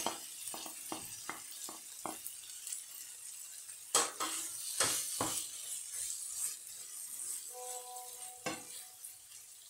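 Filling sizzling in a frying pan while a wooden spoon stirs flaked tuna into sautéed green peppers, onion and tomato, knocking and scraping on the pan several times. A steady electronic tone sounds for about a second and a half near the end.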